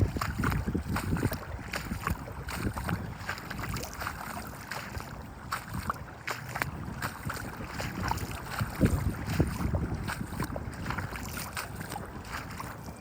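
Wind buffeting the microphone, a rumbling low noise with many short irregular crackles.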